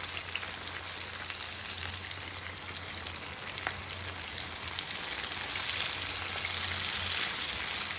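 Cod pieces frying in hot oil: a steady sizzle with fine crackling, and one sharp tick about three and a half seconds in.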